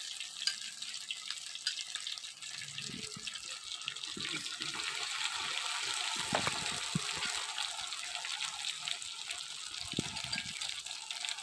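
Batter-coated chicken tikka pieces deep-frying in hot oil: a steady sizzle with fine crackles throughout, and a few soft low thumps.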